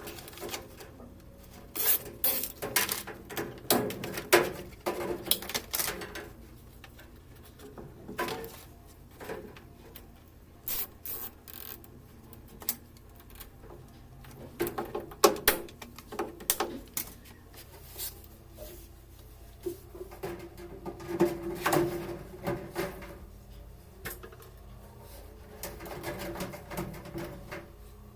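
Irregular clicks, knocks and clatter of washing-machine parts and tools being handled. A louder run of knocks comes around the middle and again a few seconds later.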